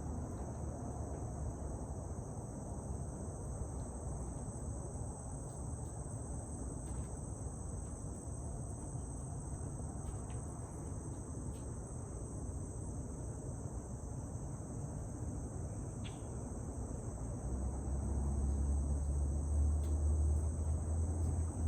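Steady high chorus of insects over the low rumble of highway traffic, the rumble swelling about three quarters of the way through.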